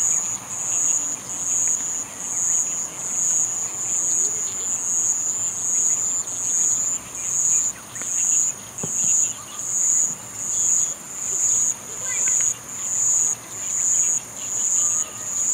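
An insect singing in the grass: a high-pitched buzzing song in even, repeated pulses, roughly four every three seconds.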